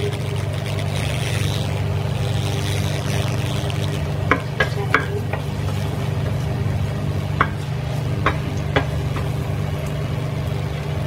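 Slices of ginger sizzling in a little hot oil in a stainless steel saucepan while being stirred with a spatula. The spatula knocks sharply against the pan about six times through the middle of the stretch, over a steady low hum.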